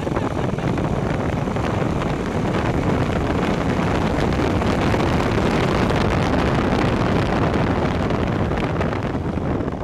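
1955 MG TF's four-cylinder engine running under way, mixed with a steady rush of wind and road noise over the open car and across the microphone. It eases off slightly near the end.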